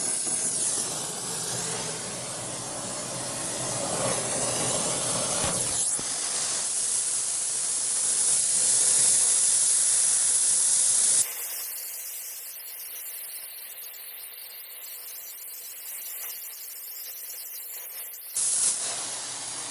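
Brazing torch flame hissing steadily while it heats copper and steel refrigerant-line joints on a compressor. About 11 seconds in the sound changes abruptly to a thinner, quieter, higher hiss for several seconds, then the fuller hiss returns near the end.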